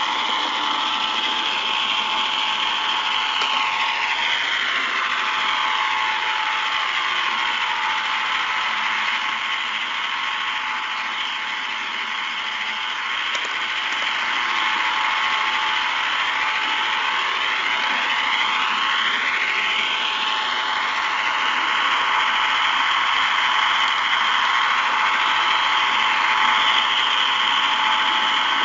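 Model train locomotive's electric motor and gearing whining as it runs along the track. The whine drops in pitch about four seconds in, then climbs back up around twenty seconds in.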